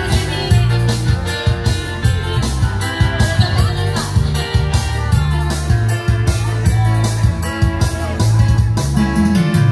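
Joget dance music played loud through PA speakers: a steady beat over a repeating bass line with melodic instrument lines on top.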